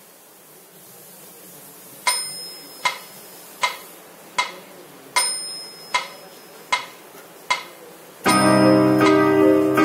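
Casio keyboard's built-in metronome ticking eight even beats, about one every three-quarters of a second, the first of each group of four accented with a higher bell-like tone. About eight seconds in, the keyboard's piano voice comes in loudly with a fast two-handed finger exercise.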